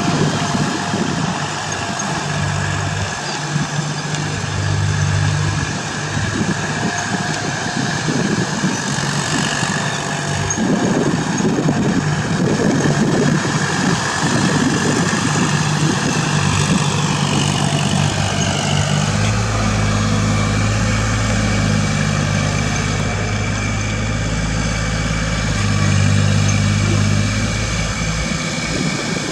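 Kubota L4018 tractor's diesel engine running steadily as it drives a rear rotary tiller through the soil. A deeper low rumble joins the engine sound about two-thirds of the way in.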